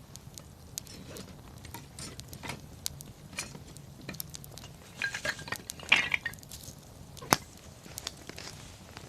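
Wood bonfire crackling, with scattered sharp pops. A louder cluster of clicks and knocks comes about five seconds in, and one sharp crack a little after seven seconds.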